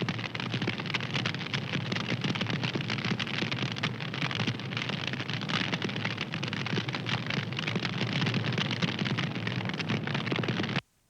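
Fire crackling steadily: a dense, continuous run of small pops and snaps over a hiss, with a brief sudden gap of near silence near the end.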